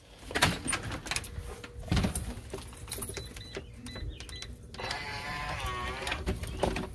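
A house door being unlocked and opened: a run of clicks, knocks and rattles from the lock and handle, then about two seconds of a wavering, high squeal near the end.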